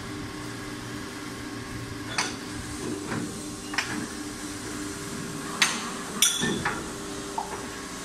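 Rotary PVC shoe injection molding machine running with a steady hum, with sharp metallic clanks as the steel shoe molds are opened and closed by hand at the loading station. There are about five clanks from about two seconds in, the loudest two close together past the middle.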